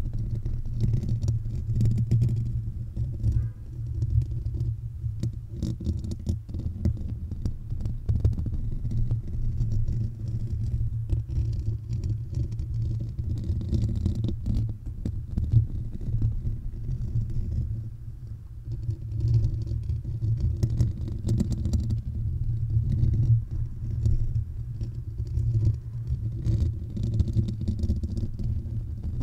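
Fingernails scratching and rubbing across the metal mesh grille of a Blue Yeti microphone, heard close up as a continuous rumble with faint scratchy flecks.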